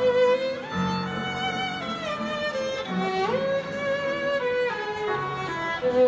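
Violin playing a melody of held notes over a digital piano accompaniment; the violin slides up into a higher note about three seconds in.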